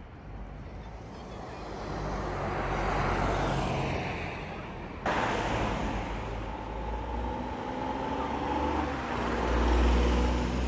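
Street ambience with cars passing on the road. The traffic noise swells and fades twice, about three seconds in and again near the end, with a low engine rumble under it.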